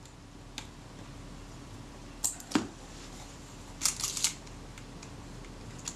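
Film advance mechanism of a Kodak Retina IIIS rangefinder camera being worked by hand: a few sharp mechanical clicks about two seconds in, then a short cluster of clicks and a rattle around four seconds in. The advance lever will not turn all the way; the cause turns out to be a displaced release-lever spring.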